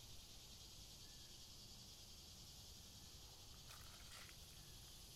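Near silence: faint swamp ambience with a steady high hiss, and two brief faint clicks close together about four seconds in.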